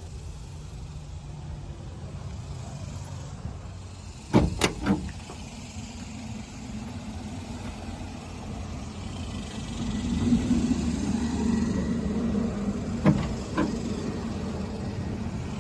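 A pickup truck's door and tailgate hardware clunking shut and latching. A quick cluster of three heavy clunks comes about four seconds in, and two lighter clunks come near the end, over a steady low rumble.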